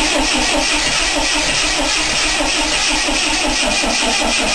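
1979 Lotus Eclat's four-cylinder engine cranking on the starter without throttle, in an even rhythmic chug of about five beats a second. It does not catch and run, sounding as if it is firing on possibly one cylinder. It is a cold non-start despite a good spark and fuel-soaked plugs, which the owner puts down to either flooding or something like no compression.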